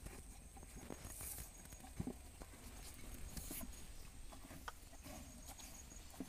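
Cattle feeding from a bowl and a plastic bucket: irregular munching and knocking of the muzzle against the container, with a sharper knock about two seconds in.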